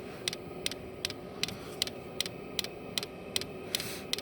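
A Chinese diesel heater's fuel dosing pump clicking about three times a second over the steady hum of the heater's fan. No fuel is reaching the tube: the pump is ticking but not drawing fuel through.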